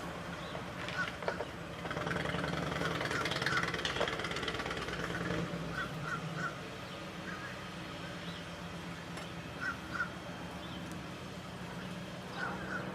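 Birds calling in the background: short calls in twos and threes, repeated every few seconds, over a steady low hum.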